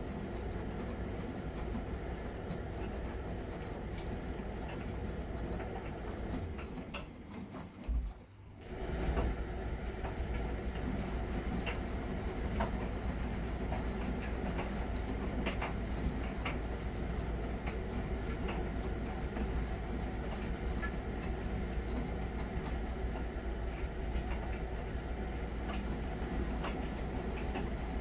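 Miele Novotronic W921 washing machine running mid-programme: a steady low rumble of the motor and turning drum, with scattered light ticks and knocks. The sound breaks off briefly about eight seconds in, then resumes at the same level.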